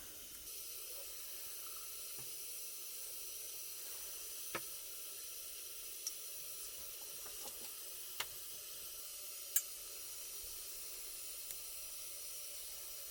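Steady hiss with a few faint scattered pops and ticks.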